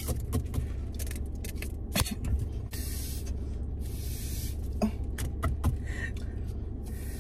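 Paper straw wrappers being torn open and rustled, with a few sharp clicks of straws and drink cups being handled, over a steady low hum.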